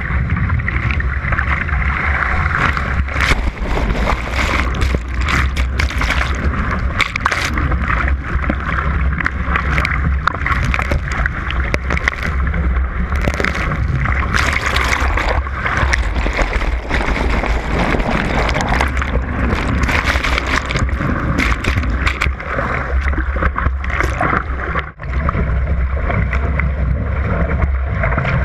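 Water rushing and sloshing along the hull of a surfski as it surfs breaking waves, with frequent sharp splashes of spray hitting the bow-mounted camera over a steady low rumble.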